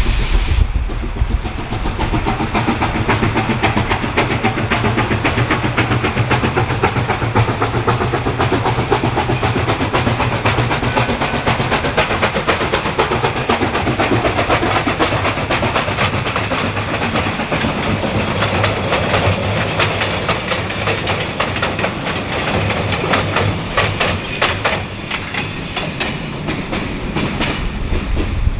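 Black River & Western No. 60 steam train running, with a dense, rapid clatter from its exhaust and rolling wheels that turns sharper in the last several seconds.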